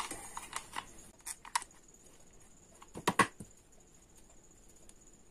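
Small clicks and taps of handling paper craft pieces and a hot glue gun while gluing glitter paper onto a cut shape, with a short cluster of clicks about three seconds in. A faint steady high-pitched whine runs underneath from about a second and a half in.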